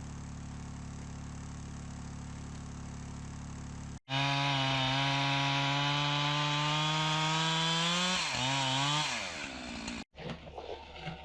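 A steady low engine hum, then, after a cut, a chainsaw running at high revs, its pitch climbing slowly and then dipping and wavering before it drops off. After another cut come scattered knocks and scrapes.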